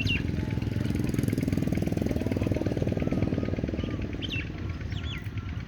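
An engine running with a fast, even putter that swells in the middle, over a few short, sweeping calls from common mynas.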